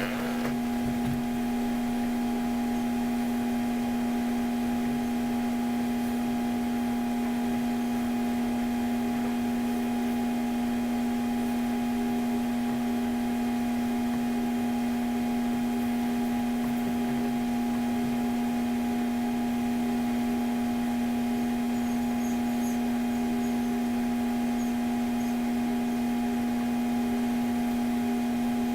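Steady machine hum with one strong low tone and several fainter higher tones held unchanged, with a faint click at the start.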